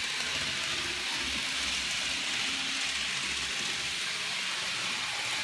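N gauge model trains running on the layout's track: a steady hissing whir, with a faint low hum in the middle.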